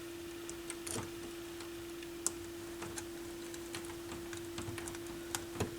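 Scattered light clicks and taps of a screwdriver working at plastic clips inside a stereo receiver's chassis, a few close together about a second in and the sharpest a little after two seconds. A steady faint hum runs underneath.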